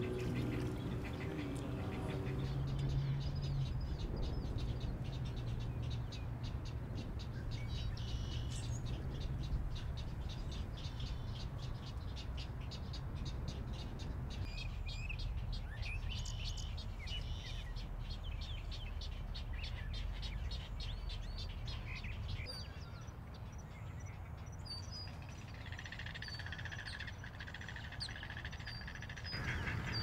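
Wild birds calling in a wetland: a run of short, rapid high chirps with a few sliding whistled calls in the middle, over a steady low outdoor rumble.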